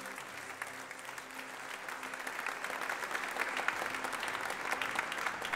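Audience applauding, the clapping building and growing louder over the few seconds.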